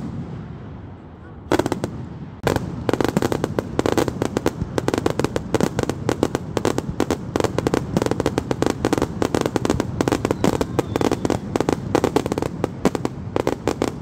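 Fireworks display: a bang at the start and another at about a second and a half, then from about two and a half seconds in a dense, rapid barrage of bangs and crackles, many a second.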